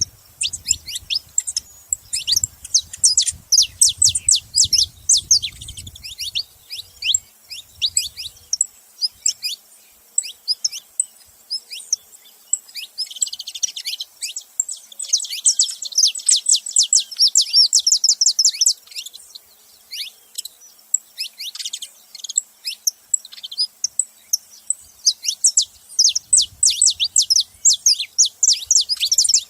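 Several saffron finches chirping and singing together, a constant stream of quick high notes, with a denser, busier run of song about halfway through.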